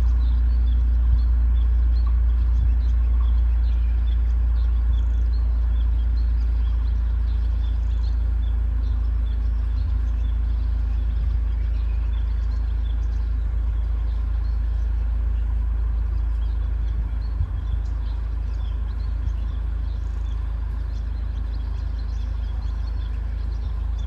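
Many small birds chirping faintly in short, scattered calls over a loud, steady low rumble that slowly eases off.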